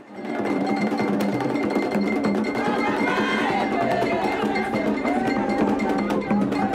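Vodou ceremony music: drums played fast and densely, with a metal bell ringing in a steady repeated pattern and voices singing over it. It starts about half a second in.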